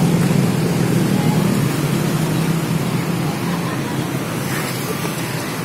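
Steady low rumble of motor traffic, with a running engine's hum and no sharp events.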